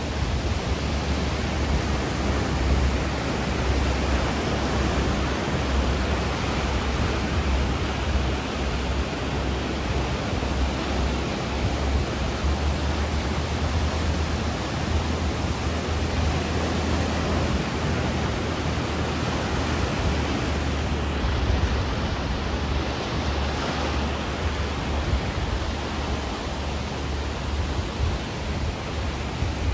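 Ocean waves and surf making a steady, continuous rush without distinct breaks between waves.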